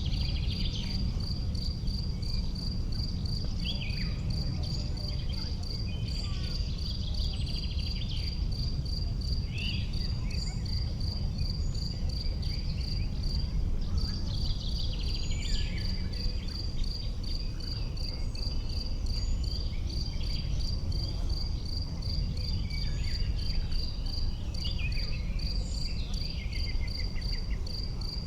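An insect, cricket-like, chirping in a fast, even pulse that breaks off briefly about halfway through. Other short chirps and trills come and go, over a steady low rumble.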